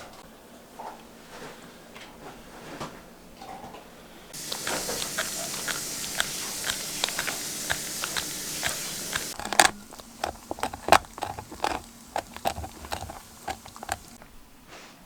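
A dog gnawing and crunching on a raw kneecap bone: scattered sharp cracks and clicks, coming thick and fast in the last few seconds. A steady hiss runs for about five seconds in the middle.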